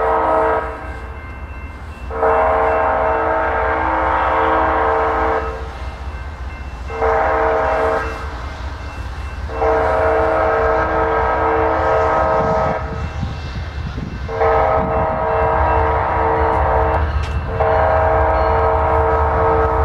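Multi-chime air horn of the approaching BNSF freight locomotive sounding a series of blasts, mostly long with one short, in the pattern of a grade-crossing warning. A steady low rumble runs underneath.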